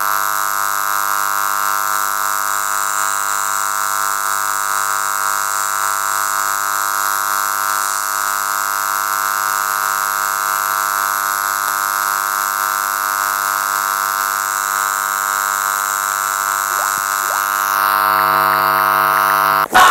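FM radio broadcast received on 93.7 MHz carrying a steady buzz over hiss instead of programme audio, the station's sound fault. It cuts off suddenly just before the end.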